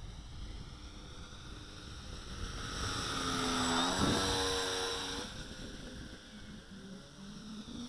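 Twin electric motors and propellers of a Durafly SkyMule RC plane buzzing on a low pass: growing louder to a peak about four seconds in, dropping in pitch as the plane goes by, then fading away. Wind rumbles on the microphone underneath.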